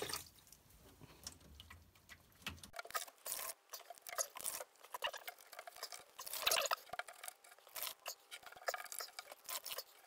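Quiet, irregular drips, patters and small taps of water as a cloth is dabbed into the flooded base pan of a washing machine and squeezed out over a plastic bucket.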